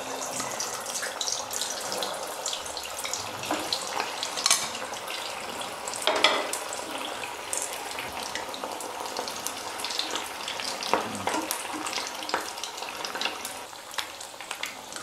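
Paneer-and-potato koftas deep-frying in hot oil: a steady sizzle and crackle with scattered sharper pops.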